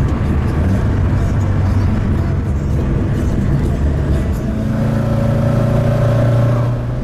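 Alfa Romeo GT 1600 Junior's twin-cam four-cylinder engine and road noise while driving, with a steady engine note coming through more clearly from about four and a half seconds in.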